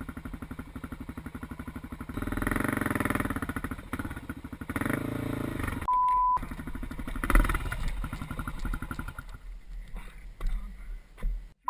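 Vehicle engine running steadily at idle. About six seconds in, a short steady beep cuts over it, and the engine sound drops away after about nine and a half seconds.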